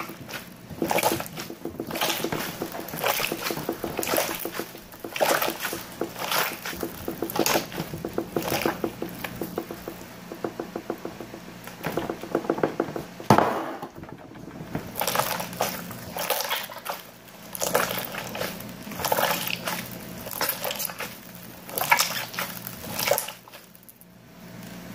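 Slime being squeezed and kneaded by hand on a tabletop, making wet squishing sounds that come irregularly, about once or twice a second, with a run of fast little clicks and a loud squelch about halfway through.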